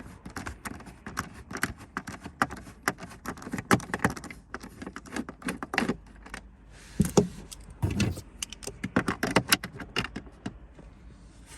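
Rapid, irregular clicking and small rattles of a screwdriver and loose screws being worked on car dashboard trim, with a couple of heavier knocks partway through.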